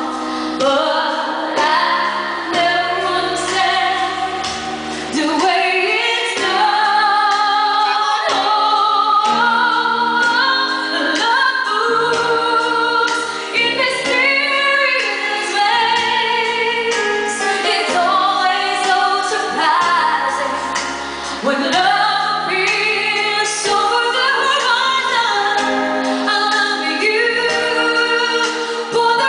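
A woman singing a song live into a microphone, with musical accompaniment underneath.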